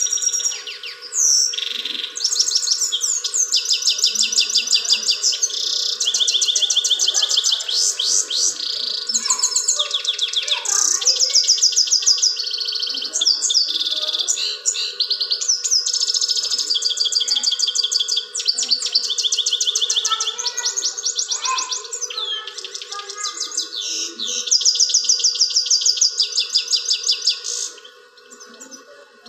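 Himalayan goldfinch singing a long, fast, trilling song of rapid high twittering notes, almost without a break, which stops near the end.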